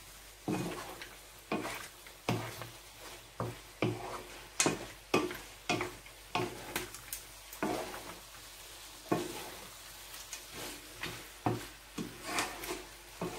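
A wooden spatula stirring and tossing pasta and seafood in a frying pan, with irregular scraping and knocking strokes against the pan, one or two a second, over a light sizzle.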